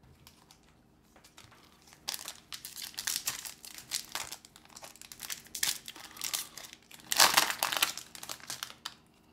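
Foil booster pack wrapper crinkling and being torn open by hand: a run of quick crackles that starts about two seconds in, with the loudest burst near the end.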